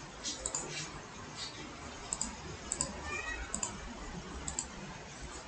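Computer mouse clicking: short sharp clicks, some in quick pairs, about one every second, over faint background hiss.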